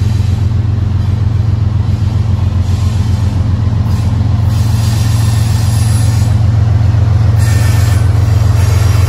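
Diesel freight locomotives running as the train approaches, led by a CSX GE ES44AH: a loud, steady, low engine drone that grows slightly louder near the end.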